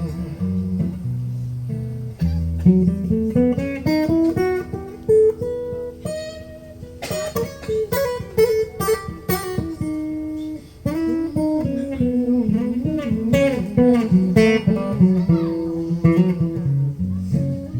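Solo guitar playing an instrumental blues break: picked single-note melodic runs, with a cluster of sharply strummed chords about seven to nine seconds in.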